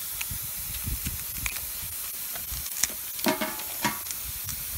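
Steady hiss of air escaping through a nail puncture in an inflated truck tire, with a few short clicks and scrapes from tire-plug tools near the end.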